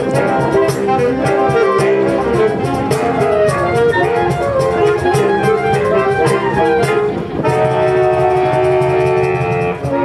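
Saxophone ensemble playing a Latin piece in chords, with a cajón keeping a steady beat. About seven seconds in, the beat drops out and the saxophones hold a long sustained chord.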